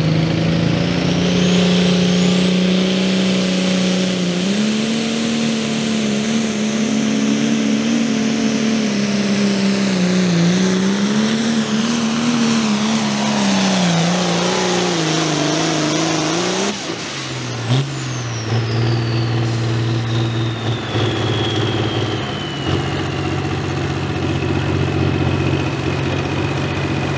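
Turbocharged International Harvester pulling tractor with a 466 cubic inch engine under full throttle, pulling a sled. Its turbo whistle climbs steeply in the first few seconds and holds high, while the engine note wavers up and down. About two-thirds of the way through, the engine note drops suddenly as the throttle comes off at the end of the pull. The turbo whistle then winds down slowly over the lower, steady run of the engine.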